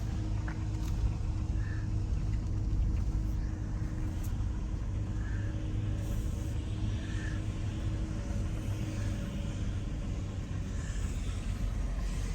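Car engine and road noise heard from inside the cabin while driving: a steady low rumble with a faint hum.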